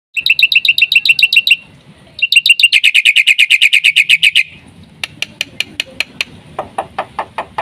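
Black-winged myna (jalak putih) singing: a run of rapid repeated chirps, a short pause, then a faster trill of about ten notes a second. This is followed by sharp clicking calls, joined near the end by lower whistled notes.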